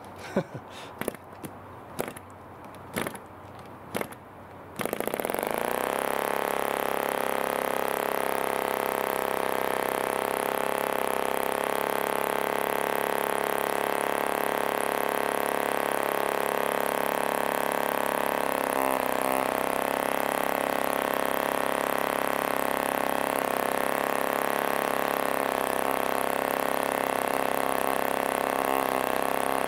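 1947 HP Series I 3.5 cc spark-ignition model aero engine being hand-flicked by its wooden propeller: a series of sharp clicks over the first few seconds, then it fires about five seconds in and runs steadily.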